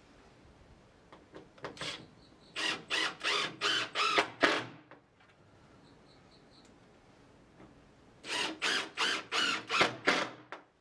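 A hand tool worked on wood in quick, even back-and-forth strokes: two runs of about six or seven strokes with a pause between them.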